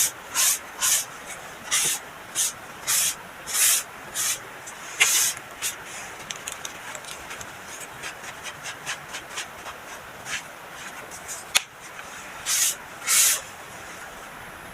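Soft crunching of compacted baking soda being crushed: a string of short, separate crunches, quicker and lighter in the middle, with one sharp click a little before the end.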